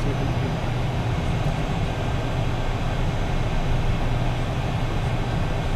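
Steady cockpit noise of an Embraer Phenom 100 rolling slowly on the ground: its twin turbofan engines and airflow make an even low hum and hiss, heard from inside the cockpit.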